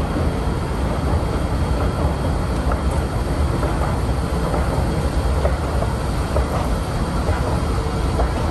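Long subway-station escalator running: a steady mechanical rumble with a few faint clicks.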